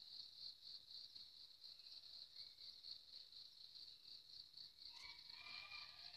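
Faint, steady insect chorus, a high-pitched trill pulsing rapidly without a break. About five seconds in, a short faint pitched call sounds over it.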